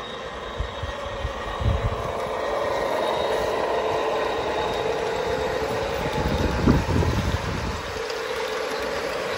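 An O gauge model InterCity 125 (HST) running past, its DCC sound decoder playing a diesel power car sound through the model's loudspeaker over the rumble of its wheels on the track, with a faint steady high whine. The sound swells toward the middle, and two brief low thumps come near 2 seconds and near 7 seconds in.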